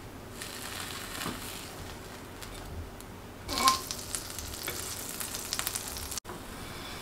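Butter sizzling in a nonstick frying pan as a sandwich is turned and pan-fried. The sizzle surges loudly a little over three seconds in as the bread is laid flat in the butter, then goes on with crackling spits.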